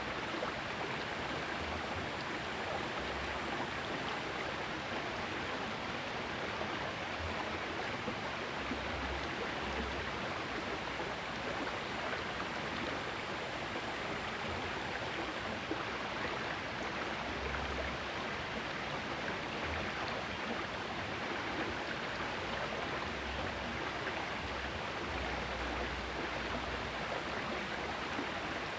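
Small river flowing, a steady rush of running water, with occasional short low rumbles.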